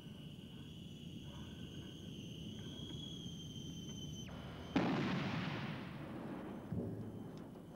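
Anti-personnel mine detonating under a boot on a test rig: a single sharp blast a little under five seconds in, its noise dying away over about two seconds, followed by a second, smaller thud near the end. Before the blast only a faint steady hiss is heard.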